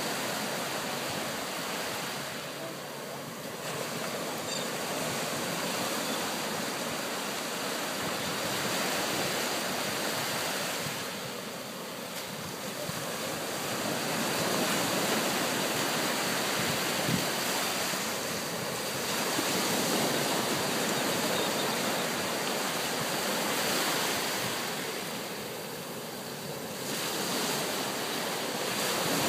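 Small waves breaking and washing up a sandy beach: a steady hiss of surf that swells and eases every several seconds.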